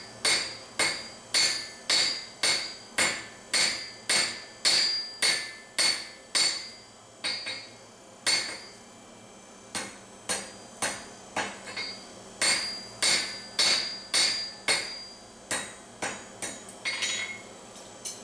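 Blacksmith's hand hammer striking hot steel on an anvil, forging the inside curve of a pruning knife blade: steady blows about two a second, each with a bright metallic ring, broken by a couple of short pauses.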